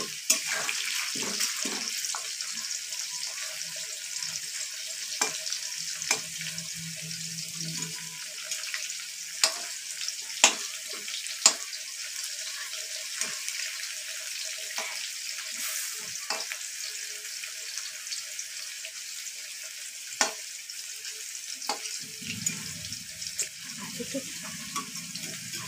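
Potato chunks frying in hot oil in a metal kadai, a steady sizzle throughout. A metal spatula clicks and scrapes against the pan now and then as the potatoes are turned.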